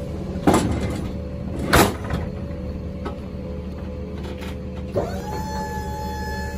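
Truck liftgate machinery with a steady mechanical hum and two loud metallic clanks about half a second and just under two seconds in. About five seconds in, the liftgate's electric hydraulic pump motor starts with a quickly rising whine, then runs at a steady pitch.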